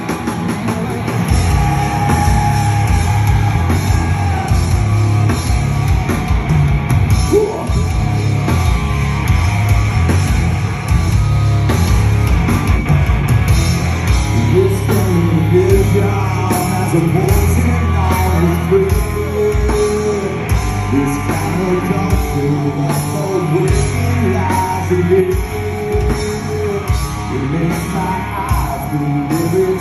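Live rock band playing a heavy song: electric guitars, bass and drum kit with steady cymbal hits, and a singer's voice coming in about halfway through.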